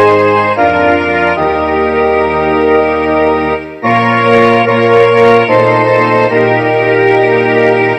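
Instrumental hymn tune played on organ with strings: slow, sustained chords that change every second or so, with a brief break between phrases a little before halfway.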